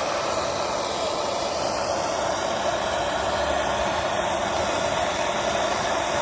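Gas soldering torch flame burning with a steady, loud hiss while heating a brass piece up to soldering temperature.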